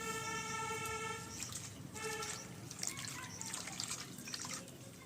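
Water trickling and splashing as bitter gourd leaves are washed by hand, with many small clicks. A steady pitched whine sounds through the first second and again briefly about two seconds in.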